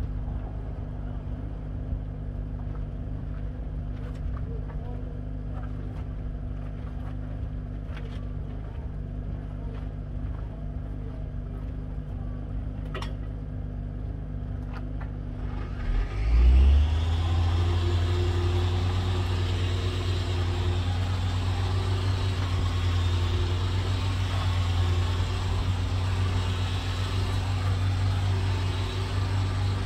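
A steady low motor hum, then about halfway through an engine or motor starts up with a brief surge and settles into a louder, steady running drone.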